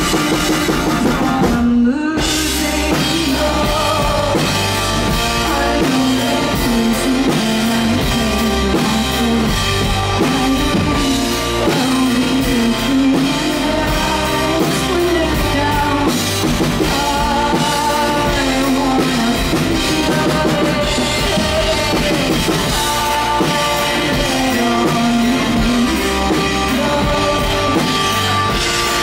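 Live rock band: a woman singing into a microphone over drum kit and electric guitar, recorded from the audience. The music cuts out for a moment about two seconds in, then comes back in.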